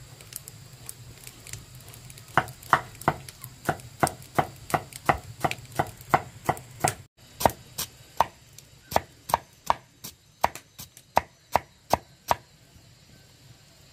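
Long knife slicing cassava roots into thin rounds on a wooden chopping block: a steady run of sharp chopping knocks, about two or three a second, with a short break about halfway and a pause near the end.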